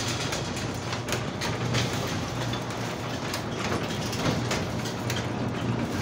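Chamberlain WD832KEVG garage door opener running, raising the garage door: a steady low motor hum with irregular clicks and rattles from the door travelling along its track.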